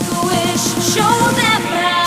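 Electronic pop music with a wavering, vocal-like melody over quick repeated rising synth notes.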